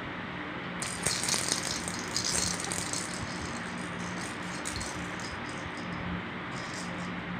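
Baby shaking a small plastic toy rattle in quick bursts, starting about a second in and thinning to scattered shakes, over a steady low hum.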